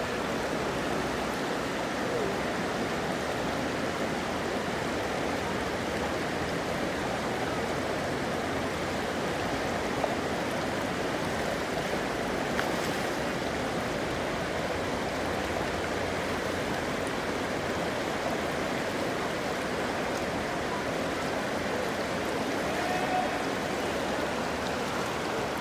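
River water rushing steadily over a shallow, rocky riffle, close to the microphone: an even, unbroken rush.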